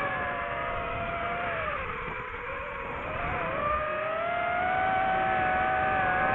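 DJI FPV quadcopter's motors and propellers whining as throttle changes: the pitch sags about two seconds in, then climbs at around the four-second mark and holds higher and a little louder.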